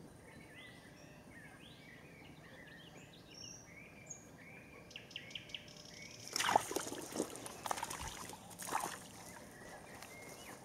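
Small birds chirping over a quiet pond; about six seconds in, a few seconds of splashing and rustling as a crucian carp is hooked on the float rod and pulled from the shallow water.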